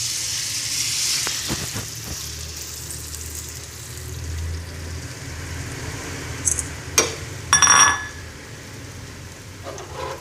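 Beaten eggs poured into hot oil in a metal wok, hitting the oil with a sudden loud sizzle that slowly settles into steady frying. About seven seconds in, a sharp metallic click and then a short clatter of metal.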